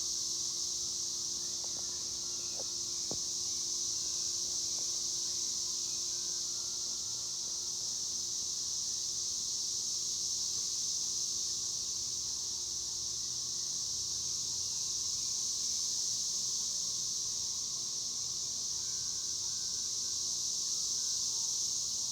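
Cicadas (chicharras) singing in chorus: a steady, unbroken high-pitched buzz.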